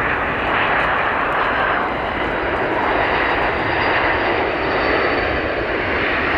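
Jet engines of a four-engine Boeing 747 airliner running during its landing: a steady, loud rush of engine noise with a faint high whine.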